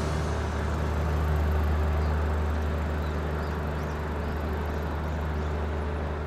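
Steady low drone of a small tugboat's diesel engine as it works with a barge on the river, with a few faint high chirps in the middle.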